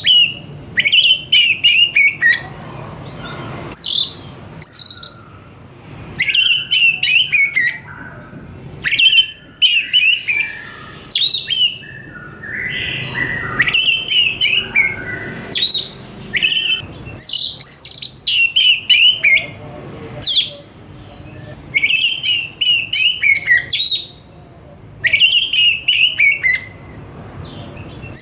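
Oriental magpie-robin (kacer) singing: short, varied whistled phrases repeated every second or two with brief pauses between them.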